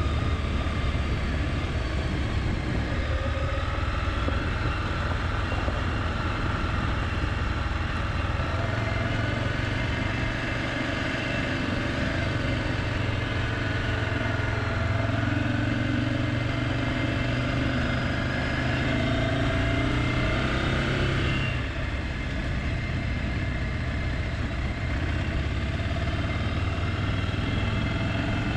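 Motorcycle engine running along a dirt track, its pitch drifting up and down with the throttle and shifting about twenty-one seconds in.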